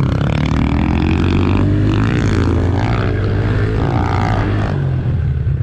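Small single-cylinder four-stroke pit bike engine running, its pitch rising and falling with the throttle.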